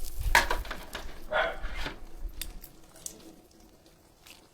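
Raw meat being put into a pot: two soft, wet squishing handling sounds, the first just after the start and the second about a second later, followed by faint small clicks.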